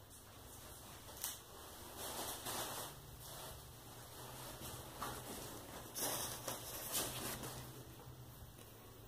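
Fire of logs and a diaper burning in a glass-fronted stove: a steady hiss with soft crackling, and louder irregular surges about a second in, around two to three seconds and again around six to seven seconds.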